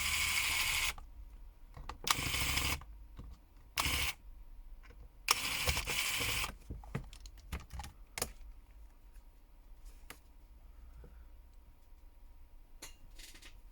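Small repair tools handling a smartphone: four short rasping scrapes in the first six or seven seconds, then scattered light clicks of metal and plastic on the phone.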